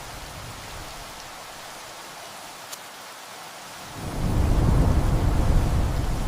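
Steady rain hiss with a deep rumble of thunder that swells about four seconds in and slowly eases off.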